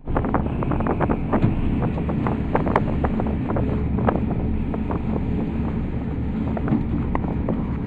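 Gondola cabin riding down its cable: a steady rumble with many sharp clicks and rattles from the cabin, thickest in the first few seconds.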